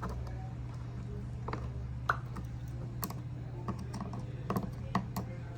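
Scattered small clicks and taps from handling wires and terminals during relay wiring, over a steady low hum.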